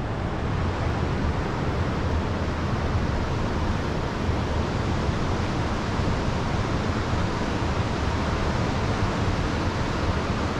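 Steady wind rushing over the microphone, with a low, uneven rumble of buffeting under it.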